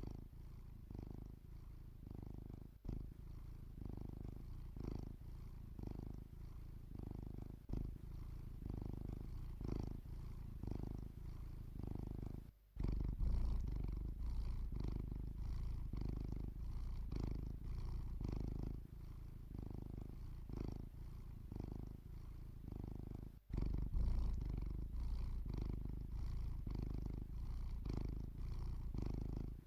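Domestic cat purring while asleep, a low, steady purr that swells and fades in a slow rhythm with its breathing. It twice drops out for an instant, about 13 and 23 seconds in, and is louder after each break.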